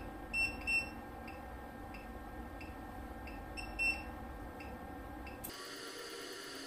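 PCT200i CT test set running an automatic current-transformer test: short electronic beeps, a pair about half a second in and another near 4 s, over faint regular ticks about every two-thirds of a second and a low hum. A little after 5 s the hum cuts off suddenly and a high-pitched whine takes its place as the test moves to its next stage.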